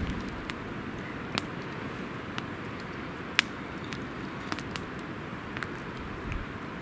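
Campfire crackling: a handful of sharp, irregular pops over a steady hiss, the loudest about three and a half seconds in.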